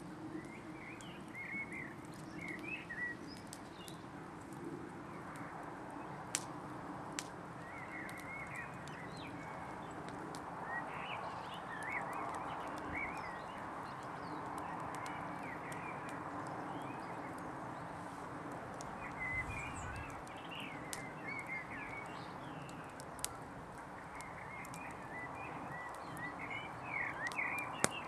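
Small birds chirping in short bursts, with a few sharp crackles now and then from a smouldering brush fire, over a steady outdoor background hiss.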